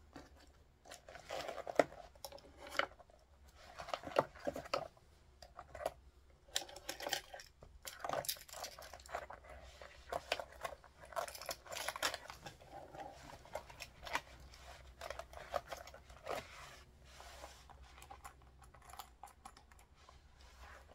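Small cosmetic items being handled and packed into a small zip pouch: irregular rustling and crinkling with light clicks of plastic tubes and cases.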